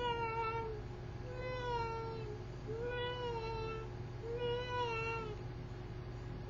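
A girl's voice making weird cat-like meowing noises: four long, slightly wavering high notes, each about a second long, evenly spaced.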